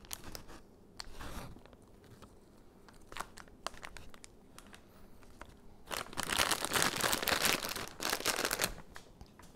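Disposable plastic piping bag crinkling as it is handled while a decorating tip is fitted, with a few light clicks, then a longer, louder stretch of crinkling from about six seconds in as the bag is opened up.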